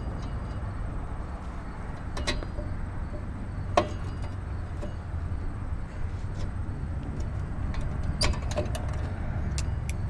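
Steel pliers clicking and clinking against a rusty drum-brake return spring and shoe hardware while prying the spring off: a few sharp metallic ticks spread out, the loudest about four seconds in, over a steady low background rumble.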